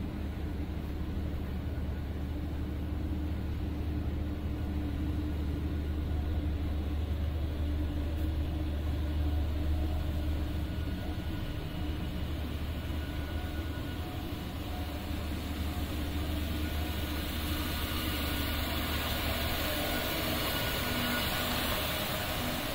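Steady low machinery hum with a few held tones. From about two-thirds of the way in, a ride-on floor scrubber's brushes and vacuum motor add a hissing whir that grows louder as the machine comes near.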